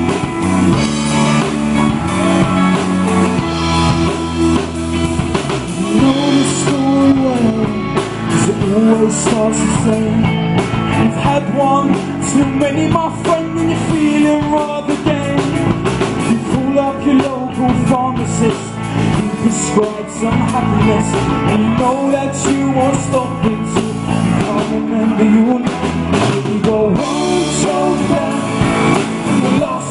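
A live rock band playing with electric guitar, bass and drum kit.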